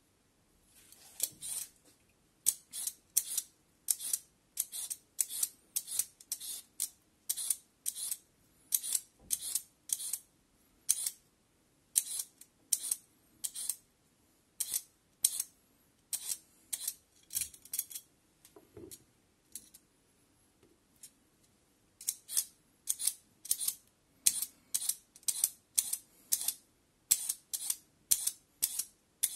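Kitchen knife chopping julienned carrot strips on a wooden cutting board: crisp cuts about two a second, pausing for a few seconds about two-thirds of the way through, then picking up again a little faster.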